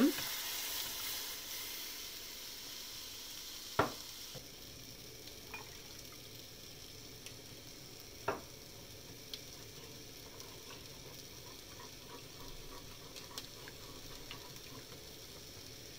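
Milk added to a hot butter-and-flour roux in a small nonstick saucepan, sizzling and dying down over the first two seconds into a faint steady sizzle. A wooden spoon stirring it knocks sharply against the pan twice, about four seconds apart, with light scraping and small ticks between.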